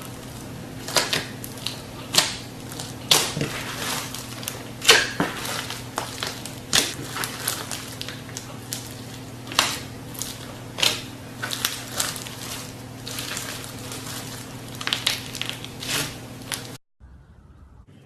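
Iceberg slime being pressed and poked by hand, its hardened top crust cracking and crunching in irregular sharp crackles, over a steady low electrical hum.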